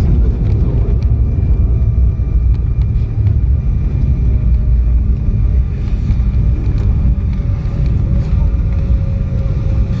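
Airliner cabin noise during the landing roll: a loud, steady low rumble from the wheels and airframe on the runway, with a faint whine that slowly falls in pitch in the second half as the jet slows.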